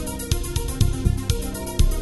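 Background music with a steady beat of about two low beats a second, with lighter ticks between them, over held instrumental notes.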